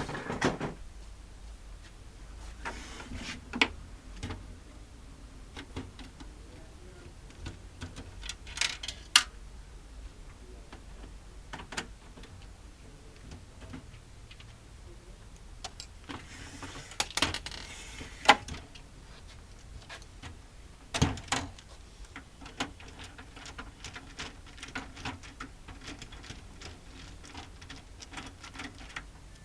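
Irregular clicks, knocks and short scrapes of small hard parts being handled, with a few sharper knocks spread through. These are typical of a printer being worked on by hand.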